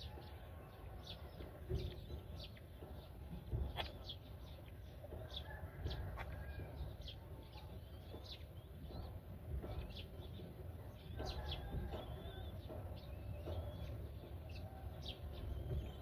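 Black-winged kite nestlings giving short, high-pitched calls, a few each second, while the adult feeds them at the nest, over a steady low rumble.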